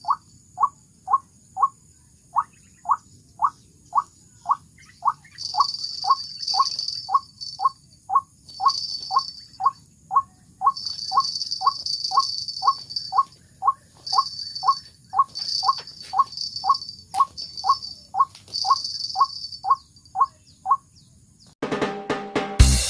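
White-breasted waterhen (ruak-ruak) calling: a long run of short, rising call notes, about two a second and very regular, typical of a waterhen decoy call used to lure the birds. A high buzzing comes and goes in stretches over the calls. Music starts near the end.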